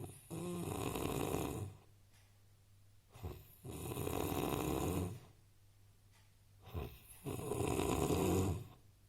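A man snoring in his sleep: three long, rough snores about three and a half seconds apart, each with a short catch just before it.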